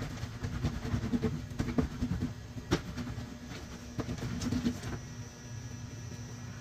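Wet, soapy cloth scrubbed back and forth on a ribbed metal washboard: an uneven rasping with sharp clicks and knocks. The scrubbing stops about five seconds in, leaving a steady low hum.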